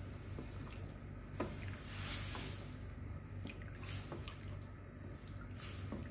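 Wooden spatula stirring fish pieces in watery soup in a metal wok: liquid swishing and sloshing, with a few short knocks of the spatula against the pan.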